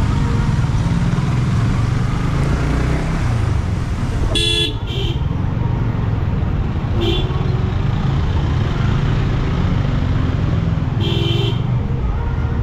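Steady low rumble of motorcycle and car engines in slow, stop-and-go traffic, with short vehicle horn beeps: two close together a third of the way in, a brief one a little after, and another near the end.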